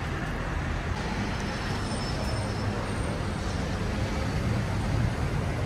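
Steady road traffic noise on a city street: a continuous low rumble of passing cars.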